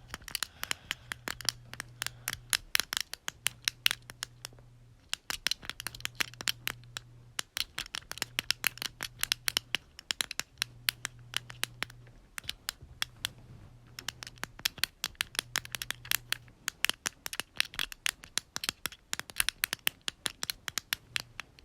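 Plastic click buttons on a knockoff fidget cube being pressed over and over: quick runs of small, sharp clicks with brief pauses between the runs.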